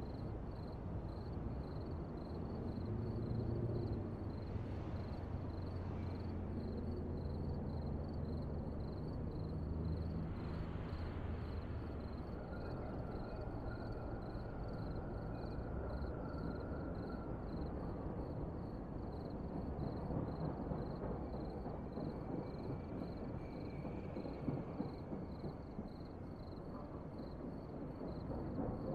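Outdoor street ambience: a low steady rumble of distant traffic, stronger in the first half, with a faint high pulsing tone repeating evenly throughout.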